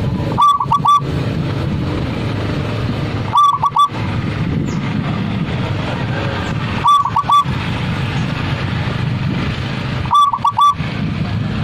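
Zebra dove (perkutut) cooing its song: four phrases about three to three and a half seconds apart, each a quick run of about four notes with falling tails, over a steady low rumble.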